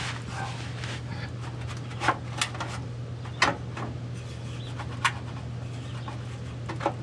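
Loose exhaust heat shield on a 2008 Toyota Yaris rattling as it is handled: about five sharp, separate metallic knocks spread over several seconds, the sign of a heat shield no longer properly fastened.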